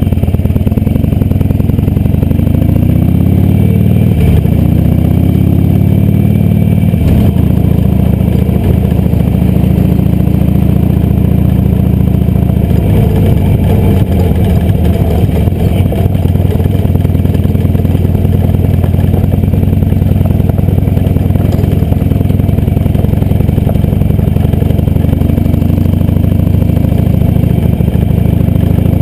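A 2008 Harley-Davidson Sportster 883R's air-cooled V-twin running loud under way. The engine rises in pitch over the first few seconds as it picks up speed, then holds a steady cruising note.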